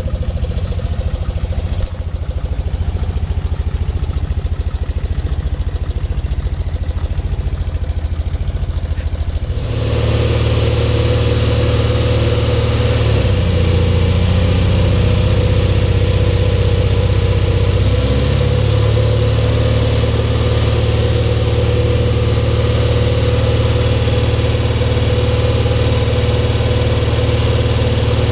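Small Grove Stevedore mobile crane's propane-fuelled Onan engine running steadily while the crane handles a load. About a third of the way in it becomes louder, and its note dips for a few seconds before coming back up.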